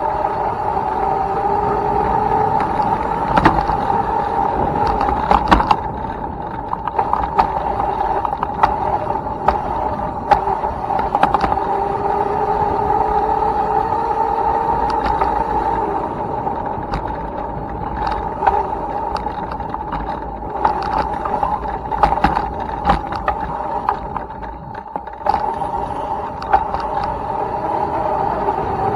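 Electric dirt bike's motor whining steadily as it is ridden, with frequent sharp knocks and rattles from the bike over rough ground; the whine eases off briefly about three-quarters of the way through.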